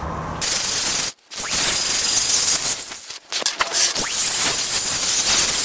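Cordless angle grinder with a strip disc cleaning up the edge of a table-saw extension wing: a steady hissing grind that starts about half a second in and breaks off briefly twice.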